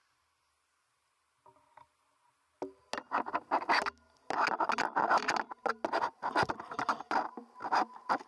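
Skis scraping over snow, a run of irregular scratchy strokes that starts about two and a half seconds in.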